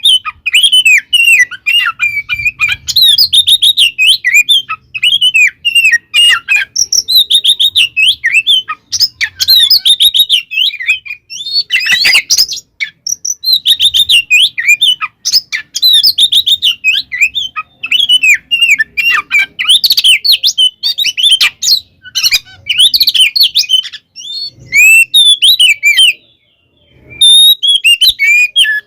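Oriental magpie-robin (kacer) in full, vigorous fighting song: a fast, unbroken run of varied chirps, whistles and trills, with a short pause near the end.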